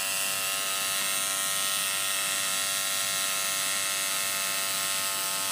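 Tattoo machine buzzing steadily as its needle works ink into the skin of a wrist.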